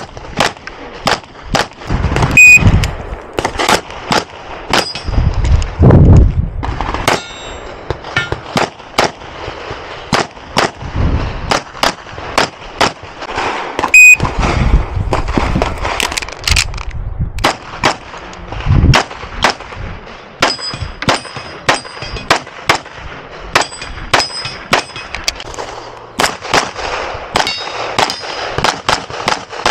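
Rapid 9×19 pistol fire from a Grand Power XCalibur, mostly in fast pairs with short breaks between strings. Some hits ring off steel plate targets with a short metallic ding.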